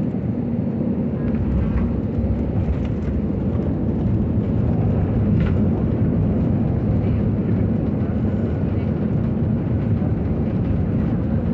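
Jet airliner cabin noise during the landing roll: a steady low rumble of the engines and the wheels on the runway, growing slightly louder a few seconds in.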